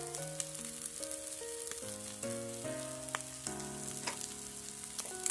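Spiced minced chicken sizzling as it fries in a pan, with a few sharp strokes of a plastic spatula, under background music with a simple stepping melody.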